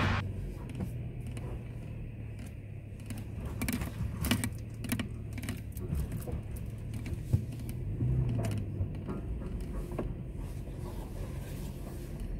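Car engine and road noise heard from inside the cabin: a steady low hum with scattered small clicks and rattles.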